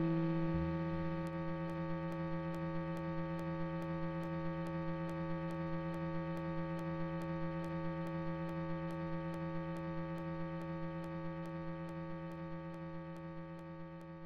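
Closing soundtrack music: a held electric-guitar note drones on and slowly fades out, with a faint regular ticking about three times a second.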